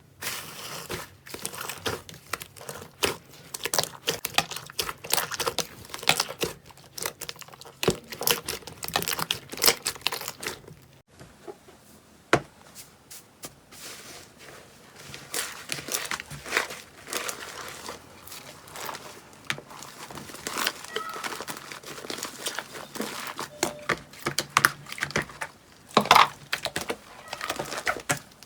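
Slime being squeezed, stretched and pressed by hand, giving a dense run of small sticky clicks and pops, with a short lull about halfway through.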